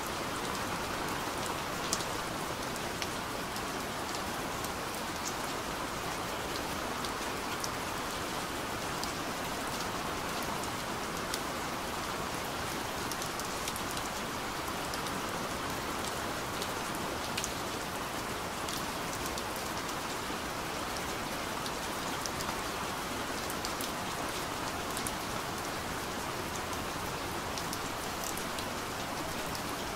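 Steady rain falling, an even hiss with scattered sharp ticks of single drops.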